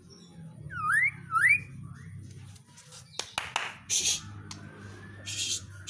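White-rumped shama (murai batu) singing: two loud rising whistled notes about a second in, followed by harsh, rasping notes and clicks and a thinner drawn-out rising whistle.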